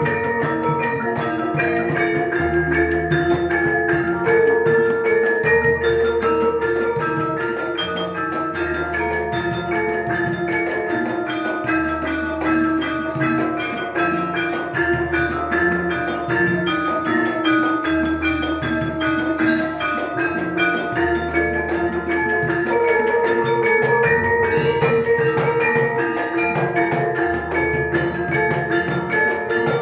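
Javanese gamelan ensemble playing: a dense stream of struck bronze keyed metallophones and kettle gongs, over a deep low tone that recurs about every three seconds.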